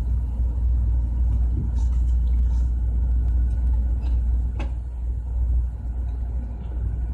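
A steady low machinery rumble runs throughout. Over it come a few light knocks and one sharper metallic click about four and a half seconds in, as the metal plates of an air compressor valve are handled and lifted apart.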